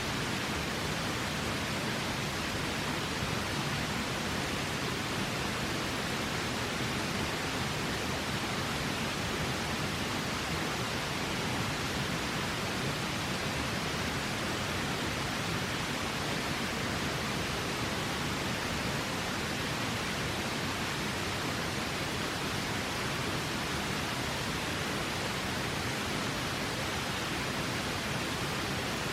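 River water flowing, a steady rushing noise that does not change.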